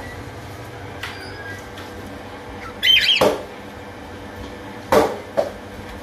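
Aviary of budgerigars and cockatiels chattering faintly, with a sharp squawk and a knock about three seconds in and two more knocks near the end.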